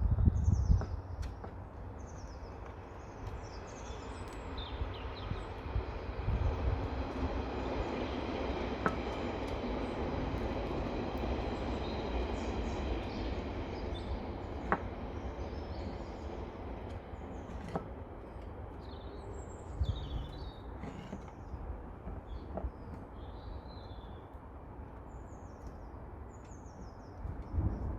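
A distant steady mechanical noise swells over several seconds and fades away again, like a passing vehicle, over a constant low rumble. Small birds chirp near the start and again near the end.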